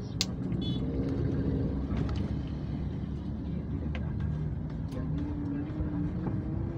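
Road traffic: vehicle engines running steadily with the rumble of the road, and one engine's pitch rising slightly in the second half.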